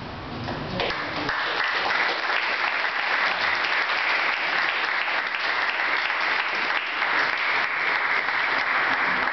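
Audience applauding: many hands clapping, swelling in over the first second or so, then holding steady.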